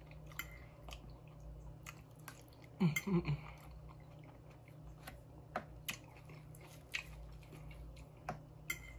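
A person chewing a mouthful of soft food close to the microphone, with faint wet mouth clicks and smacks. About three seconds in there is a brief hummed "mm".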